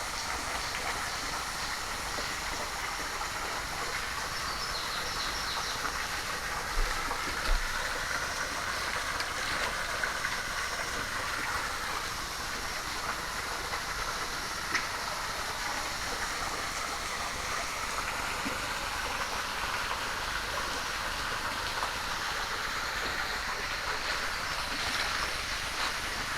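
Steady rush of water from a stream or waterfall, with two short low thumps about seven seconds in.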